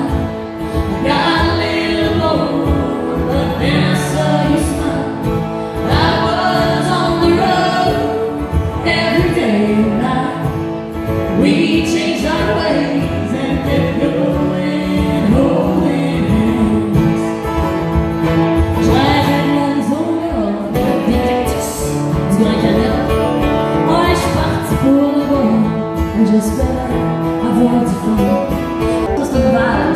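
Live country song: two acoustic guitars playing together, with a woman singing over them.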